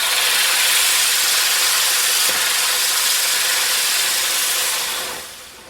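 Catherine wheel firework spinning and spraying sparks: a loud, steady hiss that dies away about five seconds in.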